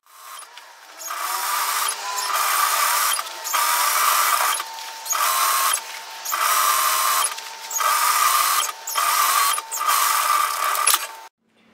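Industrial straight-stitch sewing machine stitching a hem. It runs in bursts of about a second with short stops between them as the fabric is guided round the curved hem, a steady whine under the stitching, and it stops sharply near the end.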